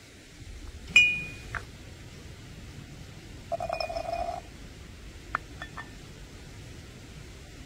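Kitchen utensils and cookware clinking: a sharp ringing clink about a second in, a short scraping rattle in the middle, then a few light taps.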